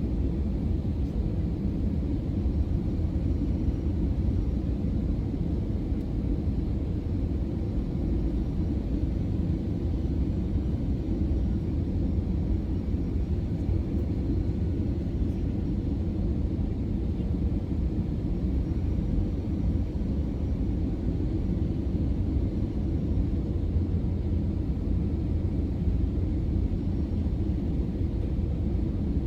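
Steady low drone inside the cabin of an Airbus A320, from its engines and the airflow around the plane, with no change in pitch or loudness.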